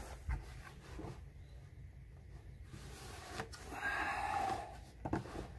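Plastic gas can and its safety spout being handled: a few light clicks and knocks, with a brief scraping rustle about four seconds in.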